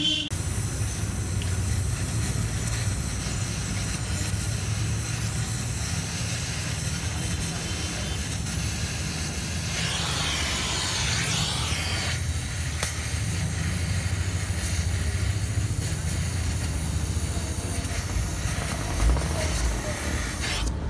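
Oxy-fuel gas torch flame hissing steadily over a low hum, with a louder, harsher burst of hiss about ten seconds in that lasts some two seconds.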